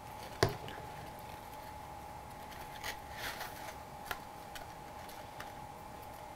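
Quiet handling of a cardstock box and glue bottle: a sharp tap about half a second in, then a few faint rustles and taps as the paper flap is pressed into place, over a faint steady hum.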